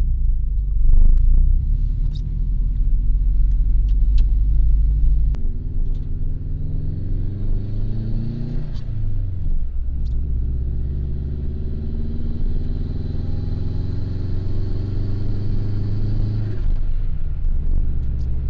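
Bugeye Subaru WRX's turbocharged flat-four engine pulling under load on a test drive, its pitch climbing with revs, dropping at a gear change about nine seconds in, climbing again and falling away near the end. It is being driven to check for a misfire after a new coil pack was fitted.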